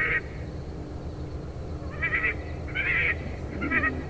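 Electronic predator caller playing Convergent Hunting's 'Neck Ringer' call: a recorded bird's call in short, rough bursts, about one a second in the second half.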